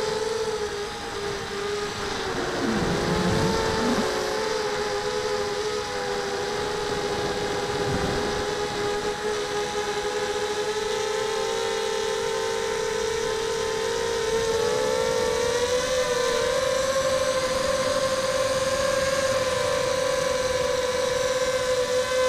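Whine of a mini quadcopter's four Sunnysky 2300KV brushless motors and propellers in flight, a steady cluster of tones that drifts in pitch with the throttle and steps up about fifteen seconds in. Wind buffets the microphone a few seconds in and again near eight seconds.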